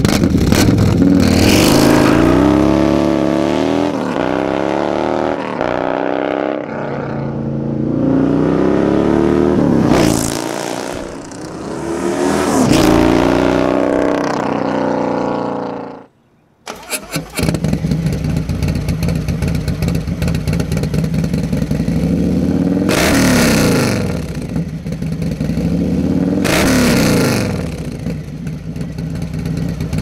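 Harley-Davidson Milwaukee-Eight 128-cubic-inch V-twin with a Feuling 521 cam, through a D&D Big Bore exhaust, accelerating through several gears, its pitch climbing and dropping back at each shift. After a short break about halfway, it idles and is revved twice.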